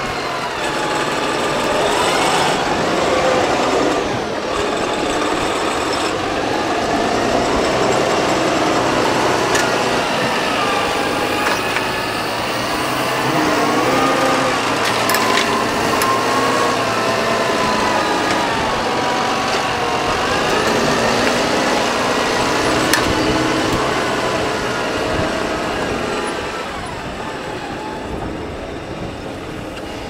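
Fendt 930 Vario tractor running under load while pulling a six-furrow Lemken reversible plough, its engine and drive tones rising and falling in pitch.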